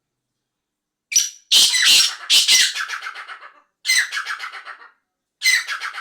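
Black francolin calling: three loud, harsh, grating phrases a couple of seconds apart, each breaking into a quick run of notes that fades away.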